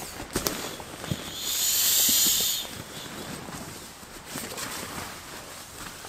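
Camp gear being handled during packing up: a single rushing hiss of about a second, starting about one and a half seconds in, with a few light knocks around it.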